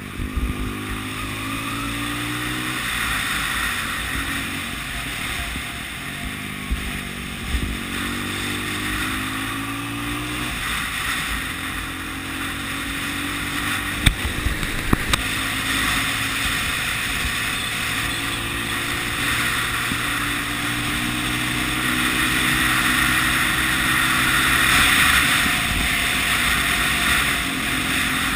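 Onboard sound of a 1980 Honda CB 250 RS's single-cylinder four-stroke engine under way, its note rising and falling with throttle and gear changes through a series of bends. Heavy wind rush over the microphone grows louder in the second half, and a few sharp knocks come about halfway through.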